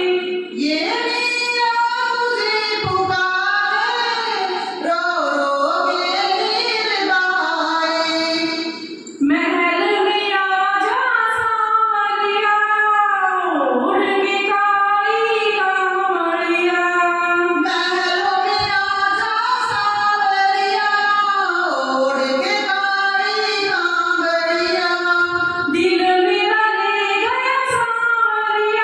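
A woman singing a Hindi devotional bhajan to Krishna into a handheld microphone, in one continuous melodic line with only a brief breath pause.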